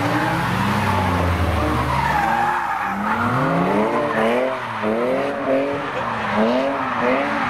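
Cars drifting: the engines rev up and down again and again, about twice a second in the second half, over tyres skidding and squealing on tarmac.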